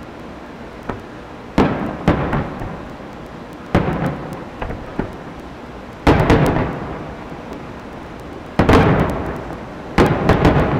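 Aerial fireworks shells bursting: a string of about eight sharp booms, each trailing off in a rolling echo over about a second. The loudest come about halfway through and again about two-thirds of the way in.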